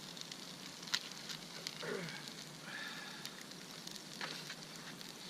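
Eggs frying in a hot pan: a steady sizzle with sharp spattering pops every second or so.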